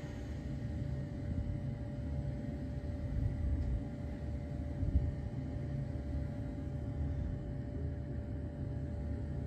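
Steady low rumble with a faint, even hum, with no distinct events.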